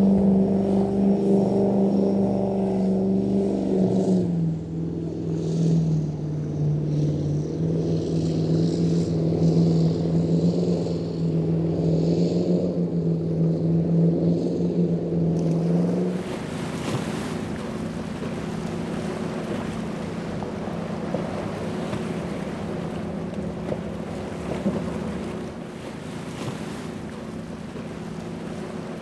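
Cigarette 42X offshore powerboat's engines running hard, a deep steady drone that drops in pitch about four seconds in. About sixteen seconds in this gives way to the rush of wind, waves and spray, with a fainter engine hum under it, as a center-console boat runs through rough water.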